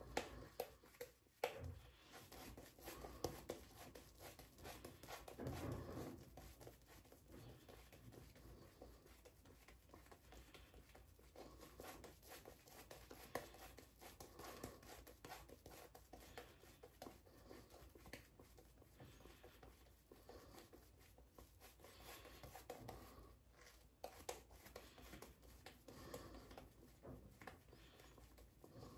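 Boar-bristle shaving brush working Proraso green shaving-soap lather over the face: a faint, continuous scratchy swishing of the bristles against the skin.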